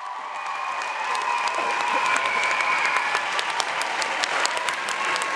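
Audience applauding, the clapping fading in and swelling louder, with a few held cheers above it.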